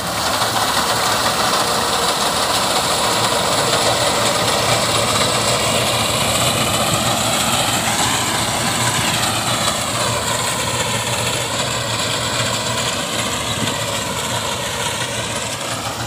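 Tractor engine running under load as it drives a front-mounted reaper cutting standing wheat. Its pitch wavers slightly now and then.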